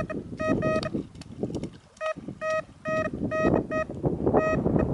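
Electronic bite alarm on a fishing rod beeping: short beeps on one steady tone, coming irregularly and pausing briefly near the middle, over wind noise.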